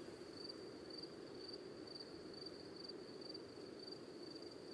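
A cricket chirping faintly and steadily, a high-pitched chirp repeating about three times a second.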